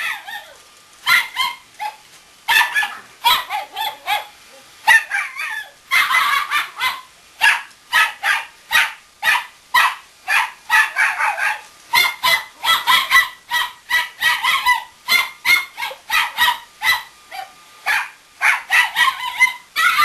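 A small Chinese Crested dog barking at a Roomba robot vacuum in a long run of short, high-pitched yaps, about two a second, with a few brief pauses.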